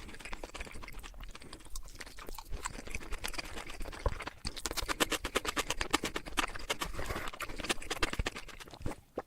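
Close-miked chewing of Korean chicken: rapid crisp crunches and wet mouth clicks, growing denser and crunchier about halfway through.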